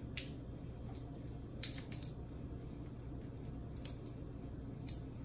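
Cooked snow crab leg shells cracking and snapping in a handful of short, sharp, irregular clicks as the meat is pulled out by hand, the loudest about a second and a half in, over a low steady hum.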